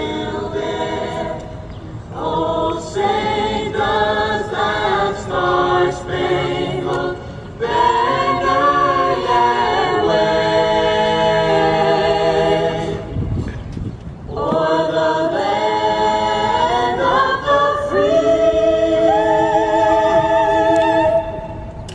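A choir singing a slow song in long held notes, heard over large outdoor loudspeakers. There is a short break about two-thirds of the way through, then a long held chord near the end.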